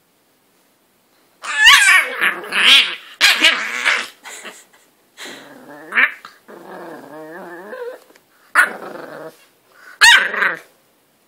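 English bulldog puppy growling and barking in short bursts as it wrestles its dog bed, starting about a second and a half in, with a longer wavering growl in the middle.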